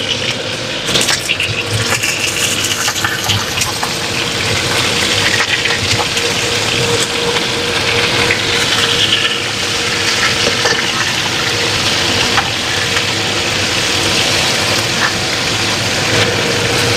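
Fish frying in hot oil in a steel wok, a steady sizzle, with scattered clicks and scrapes of a metal ladle turning the fish against the pan.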